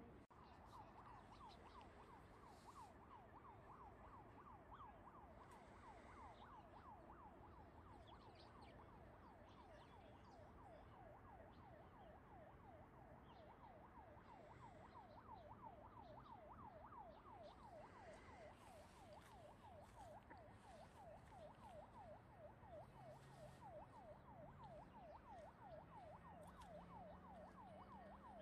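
Faint, distant siren yelping, its pitch sweeping rapidly about three to four times a second without a break, over a low background rumble.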